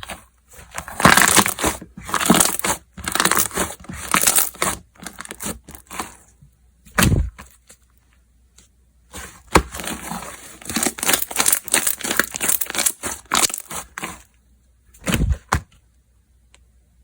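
Slime being squeezed, stretched and pressed by hand, giving crackling, popping sounds in two long bursts, with a heavier slap of slime about halfway through and again near the end.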